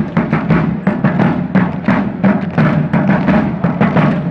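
Military field drum beating a rapid marching rhythm, several strokes a second, starting suddenly.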